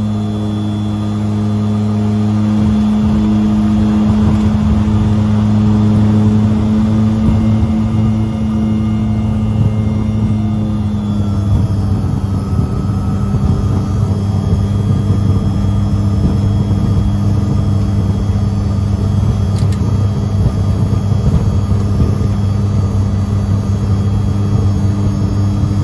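The twin Garrett TPE331-12 turboprops and propellers of a Metro 23, heard from inside the cockpit during the ground roll after landing. They make a loud steady drone with a low buzzing tone. The sound grows noisier about three seconds in and shifts slightly in pitch about halfway through.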